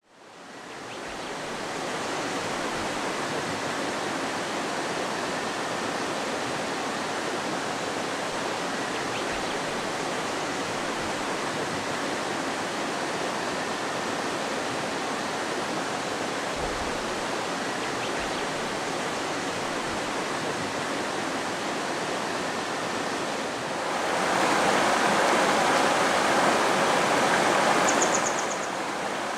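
Shallow river babbling over stones, a steady rushing and trickling that fades in at the start and grows louder for a few seconds near the end. A small bird gives a brief high twitter near the end.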